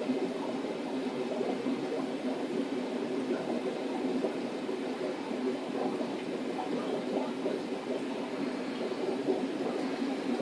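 Steady bubbling of air-driven sponge filters in aquarium tanks, with a constant equipment hum beneath it.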